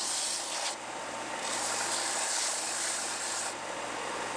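Ryobi benchtop belt sander running, its belt sanding a laminated wooden landing-net hoop with a steady gritty hiss. The hiss thins briefly under a second in, comes back, and eases again near the end as the hoop is lifted off the belt.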